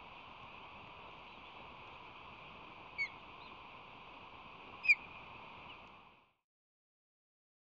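Two short, high osprey chirps, about two seconds apart, the second louder, over a steady hiss; the sound cuts off to silence about six seconds in.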